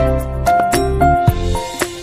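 Background music: held melody notes over a bass line, with a steady beat.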